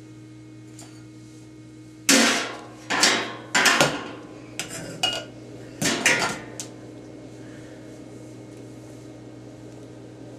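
A baby banging and clattering metal pots and pans: about eight sharp clangs with ringing, starting about two seconds in and stopping after about four and a half seconds. A steady low hum runs underneath.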